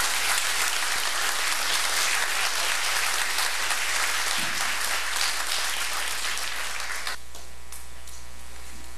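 Audience clapping at the end of a speech, stopping about seven seconds in and leaving a steady electrical hum.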